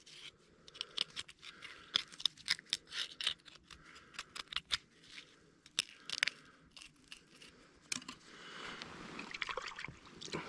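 Knife cutting through a freshly caught trout: a run of short, wet crunching cuts through skin and bone, then softer rustling near the end.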